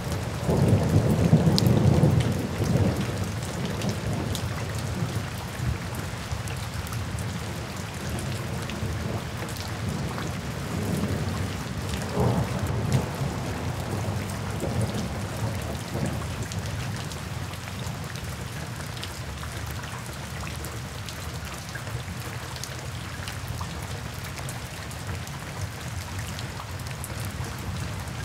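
Steady rain falling on wet pavement, drops splashing into shallow puddles. A low rumble swells in the first couple of seconds and again about halfway through.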